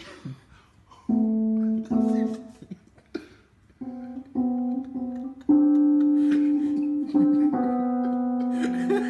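A cat's paws pressing down on the keys of an electronic keyboard as it walks across it, sounding a string of clashing chords. Each chord starts suddenly and holds until the next, about one a second, and they get louder about halfway through.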